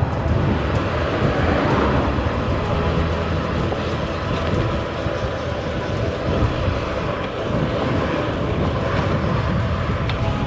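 Wind buffeting the microphone of a camera on a moving bicycle, an even rough rush that is heaviest in the low range, with tyre noise on tarmac.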